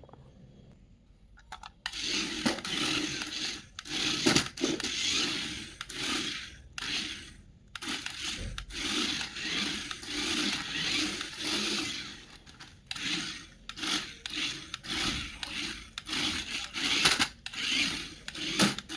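Packaging being handled during an unboxing, in repeated rubbing and scraping bursts that start about two seconds in and come irregularly, each lasting up to a second or so.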